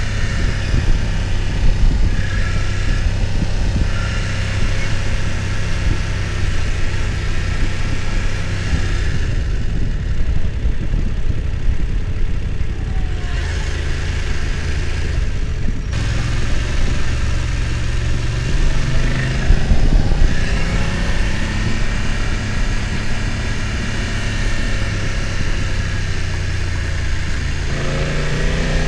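BMW F900 XR's parallel-twin engine running under way, its pitch rising and falling with the throttle. The revs climb about two-thirds of the way through and again near the end.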